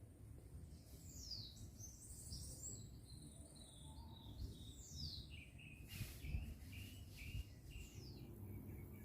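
Birds calling faintly: a scatter of high chirps and short falling whistles, over a low rumble, with a soft knock about six seconds in.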